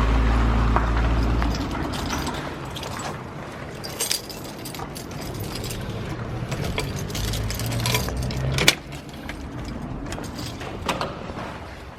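Keys jangling and clinking over a low rumble, with one sharp knock about three-quarters of the way through.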